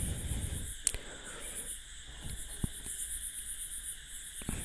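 Crickets chirping in repeated high-pitched pulse trains that stop and start, with a few sharp clicks about a second in, midway and near the end.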